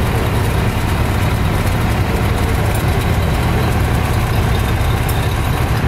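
A fire engine's diesel engine idling steadily, a low even sound with no revving.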